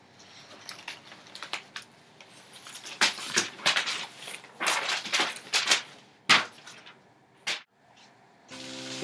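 Glossy magazine pages being torn by hand: a series of short, sharp rips and rustles. Music comes in near the end.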